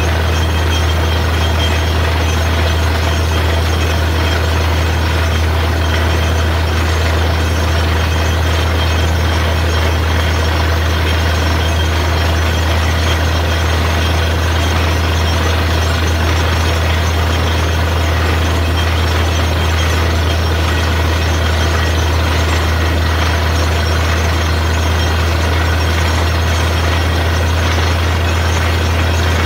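Heavy engine of a borewell drilling rig running at a constant speed, a loud, steady deep hum with no change throughout.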